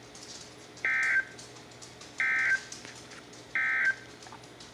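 Three short bursts of digital data tones from NOAA Weather Radio, the SAME end-of-message code that closes the severe thunderstorm warning broadcast. The bursts are equal in length, about a third of a second each, and come about a second and a half apart over faint radio static.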